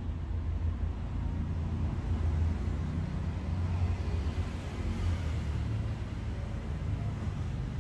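A steady low rumble of background noise, swelling slightly about halfway through.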